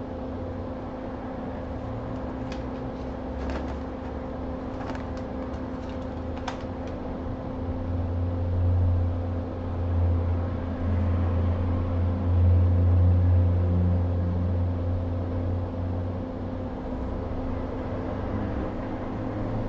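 Steady low electrical hum of running bench equipment, swelling louder from about eight to sixteen seconds in. A few light clicks come in the first seven seconds.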